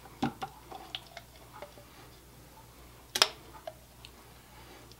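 A spatula scraping sour cream out of its tub into a stainless steel stand-mixer bowl: a few soft clicks and taps, with one sharper knock about three seconds in.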